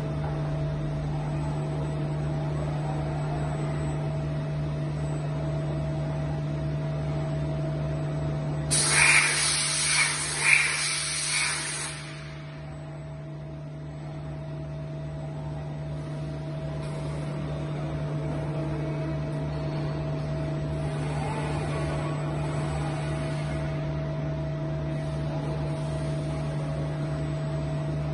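Steady machine hum of an Okuma LB3000 EXII lathe cell being loaded by a robot arm. About nine seconds in, a loud hiss with a few sharper peaks lasts about three seconds. After the hiss the hum is a little quieter and slowly builds back up.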